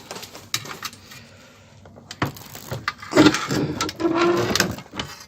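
Metal cargo-box door of a Toyota Hiace truck being handled and pushed shut: a few sharp clicks and knocks, then a louder stretch of rattling and scraping, with a brief creak about four seconds in.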